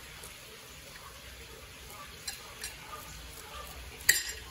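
Butter knife scraping scales off a mangrove snapper fillet on a plate, in light scratchy strokes with a few faint ticks, and one sharp clink of the knife on the plate near the end.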